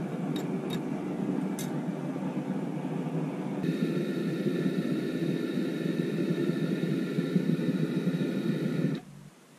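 Gas burner firing into a homemade metal-melting furnace, a steady rushing noise with a faint high whistle, cut off suddenly about nine seconds in as the gas valve is closed. A few light clicks sound in the first two seconds.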